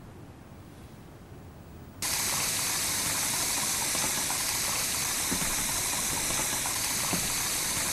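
Faint room tone, then about two seconds in a kitchen faucet's strong stream of water starts suddenly and pours steadily into a kettle in the sink: a tap left running.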